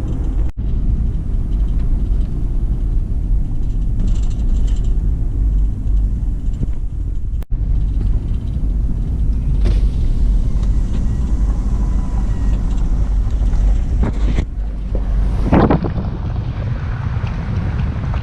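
Car driving, with a steady low road and engine rumble heard from inside the cabin. The sound changes abruptly near the end.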